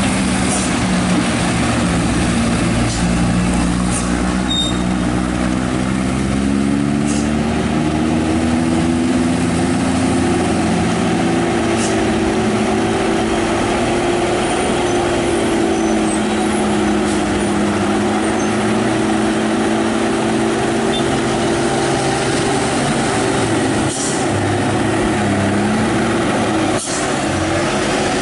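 Heavy diesel trucks driving past on a wet road, engines running steadily under load with a pitch that drifts slowly up and down, over steady tyre noise.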